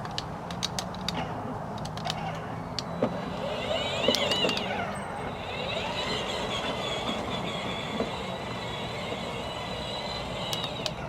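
Electric drive motors and gearboxes of a 12V kids' ride-on car whining as it is driven by remote control. The whine rises and falls about four seconds in, then holds steady, with a few sharp clicks in the first seconds.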